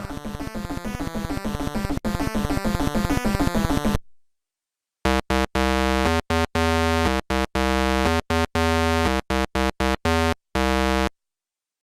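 Synthesized electronic buzzing: a rapid, even pulsing buzz for about four seconds, then after a second of silence a steady buzzy chord that cuts on and off abruptly in irregular chunks.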